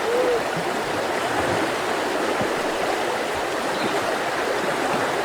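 Mountain river water rushing steadily over rocks, with a short gurgle just after the start.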